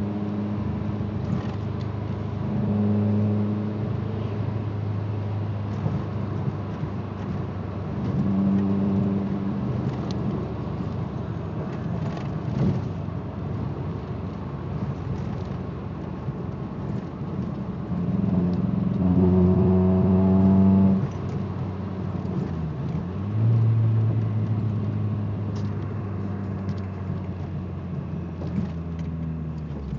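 Ford ZX2's four-cylinder engine pulling under light throttle while driving, running rough with a low droning buzz that swells and fades several times. The owner blames a bad misfire and a loose timing-belt tensioner pulley that makes it vibrate below 2,000 rpm.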